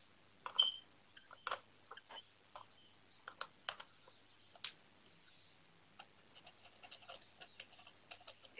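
Small metal hand tools clicking and tapping on a hard surface during a vape coil build: scattered single clicks, then a quick run of faint ticks over the last few seconds.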